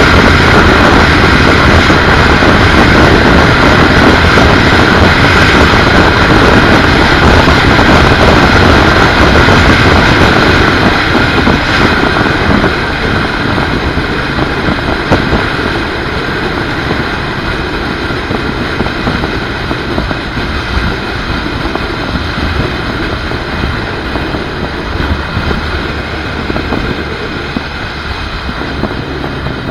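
Wind rushing over the microphone of a camera on a BMW R1200GS motorcycle at highway speed, mixed with the bike's engine and tyre noise. The rush drops noticeably about twelve seconds in.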